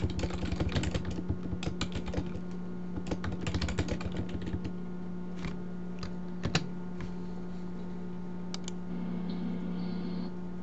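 Computer keyboard typing: a quick run of keystrokes for about four to five seconds, then a few single clicks spaced out. A steady low hum runs underneath.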